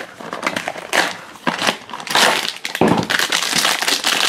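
A cardboard blind box being pulled and torn open, then the foil blind bag inside crinkling and tearing as it is opened, with a run of dense, irregular crackles.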